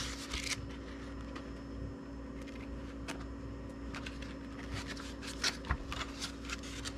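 Paper user guide being unfolded and handled with light rustling, then a clear plastic blister pack picked up, with a few sharper crackles near the end, over a steady low hum.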